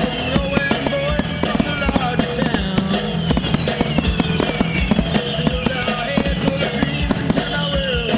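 Fireworks going off in quick succession, many sharp bangs and crackles throughout, over a loud music soundtrack.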